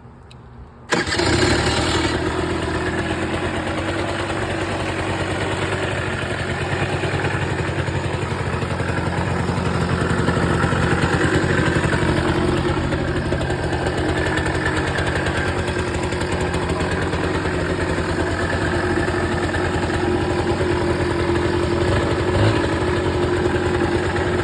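Kawasaki KFX 80 quad's small single-cylinder engine starts about a second in and then runs steadily at idle.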